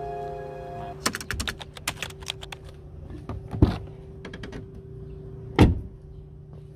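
Handling noise from a phone camera being moved: a quick, irregular run of sharp clicks and taps starting about a second in, with two heavier thumps about two seconds apart. Faint background music fades out near the start.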